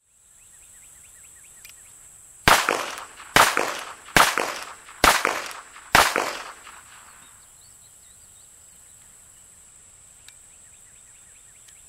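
North American Arms Sidewinder .22 rimfire mini-revolver fired five times in quick succession, a little under a second apart, each shot trailing off briefly. A steady high insect drone carries on underneath.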